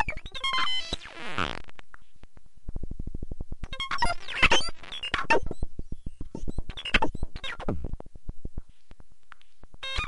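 Modular synthesizer making glitchy electronic bleeps: stepping tones at first, then a fast run of clicks, then irregular bursts of bleeps and noise that fade out near the end.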